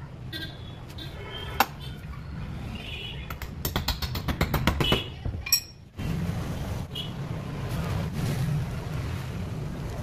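Knife blade mixing and scraping an adhesive paste on a piece of cardboard, with a quick run of sharp clicks about four seconds in, over a steady low background rumble.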